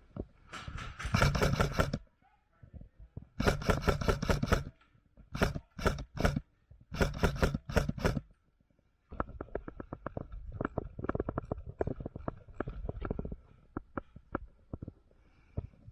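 Airsoft gun firing several rapid bursts of sharp cracks, then a run of irregular knocks and rustling.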